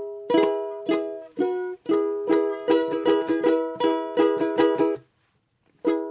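Ukulele strummed on an E chord (second fret barred, top three strings at the fourth fret): a few spaced strums, then the quick down, down, down, up, down, up strumming pattern. It stops about five seconds in, and after a short gap the strumming starts again near the end.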